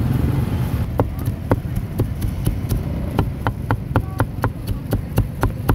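Knife chopping grilled pork on a round chopping board, a quick even run of about four chops a second starting about a second in, over a steady low rumble.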